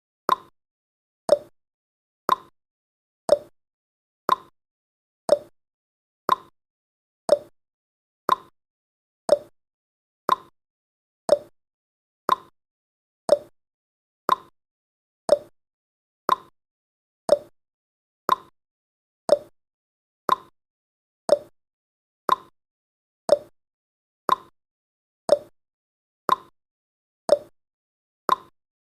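Countdown timer tick sound effect: one short, sharp tick every second, evenly spaced and steady.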